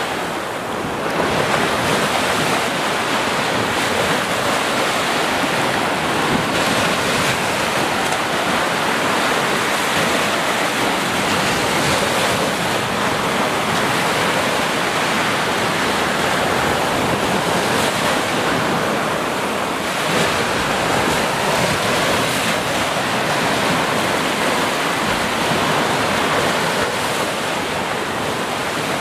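Small ocean waves breaking and washing up onto a sandy beach: a continuous surf hiss that swells and eases slightly.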